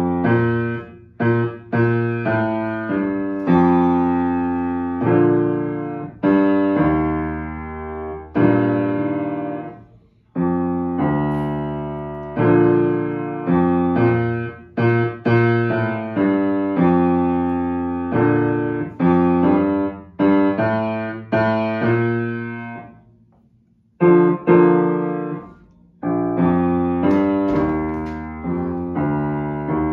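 Yamaha upright acoustic piano played by a child: a beginner-level piece of single notes and simple chords, each note ringing and dying away, in phrases broken by two short pauses.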